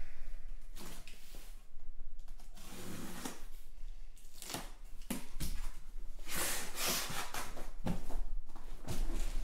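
A cardboard shipping case being cut and opened with a box cutter: a run of scraping, rustling and tearing strokes as the packing tape is slit and the flaps are pulled back. The loudest is a long hissing rip about six seconds in.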